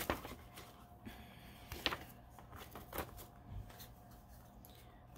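A glossy printed paper card being handled and turned over, making a few faint rustles and soft taps.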